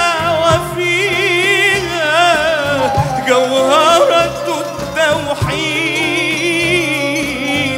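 A man singing an Arabic song solo, in long ornamented notes with a wide vibrato, over a steady low instrumental accompaniment.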